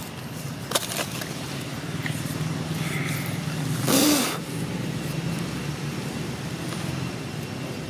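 A steady low engine hum, like a motor vehicle running nearby, with a brief loud rush of noise about four seconds in and a few faint clicks.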